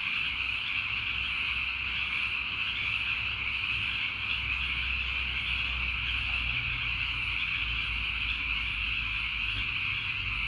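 Dense, steady chorus of tree frogs calling at dusk, an unbroken high-pitched wall of calls with no pauses, over a faint low hum.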